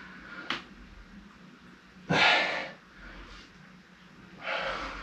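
A man breathing hard from exertion, with three heavy breaths: a short one about half a second in, the loudest about two seconds in, and another near the end.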